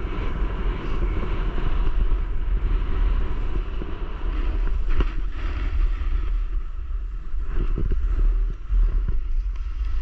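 Wind buffeting the microphone of a camera worn while skiing downhill, with the scrape and hiss of skis running over packed snow and a couple of brief knocks about halfway through.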